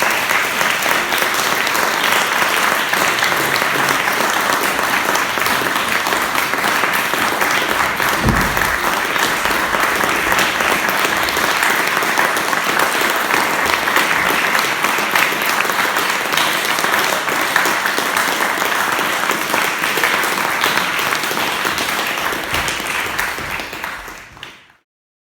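Audience applauding steadily, with one low thump about eight seconds in; the clapping fades out just before the end.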